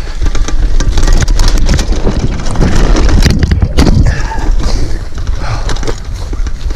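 Mountain bike rattling and clattering over rough trail at speed: many sharp knocks and clicks over a heavy low rumble of wind on the microphone.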